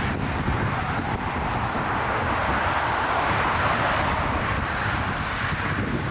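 Strong gusty wind buffeting the microphone: a steady rushing noise with a low rumble that swells and eases.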